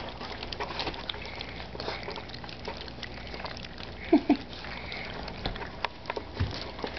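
Old English Sheepdog puppies eating soaked kibble from a metal pan: steady wet lapping and smacking with many small clicks. Two short, louder sounds come close together about four seconds in.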